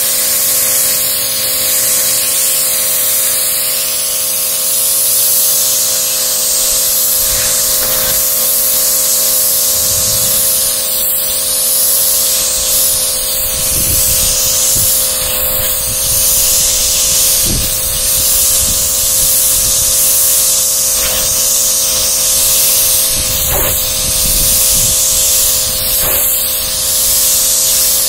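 Pressure washer jet spraying water onto a car floor mat on concrete, a steady loud hiss as the high-pressure water blasts the sprayed-on cleaner off as foam, with a steady hum from the machine underneath.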